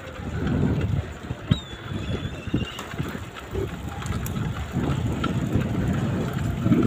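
Wind buffeting the microphone of a camera carried on a moving bicycle, a rumble that swells and fades in gusts, with a few faint clicks.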